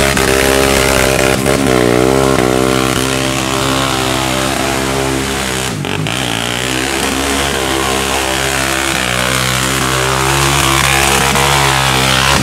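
ATV engine revving hard as the quad churns through a mud pit with its tyres spinning and throwing mud. The engine pitch rises and falls with the throttle, with a brief dip about six seconds in.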